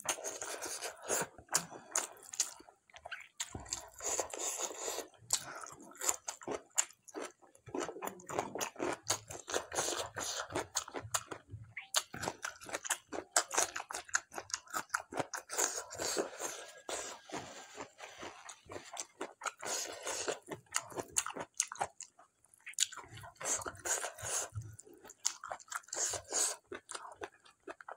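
A person chewing and biting mouthfuls of mutton curry with dhido, close up, with many quick, irregular clicks from the mouth.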